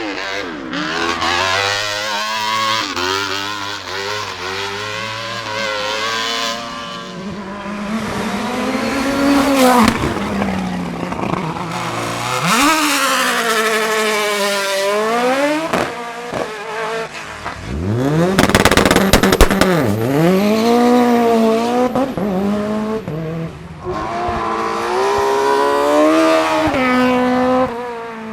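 Racing car engines revving hard as the cars accelerate up the hill, the pitch climbing and dropping again and again with the gear changes and lifts. The loudest run comes about two-thirds of the way through.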